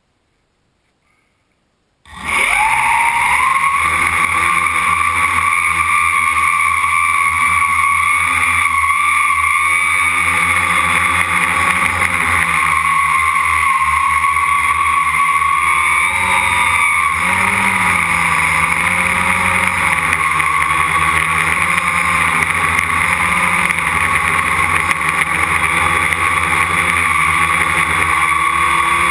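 Quadcopter's electric motors and propellers spinning up suddenly about two seconds in, then a loud, steady whine and propeller buzz that shifts slightly in pitch as it flies, heard from the camera on the frame right beside the props.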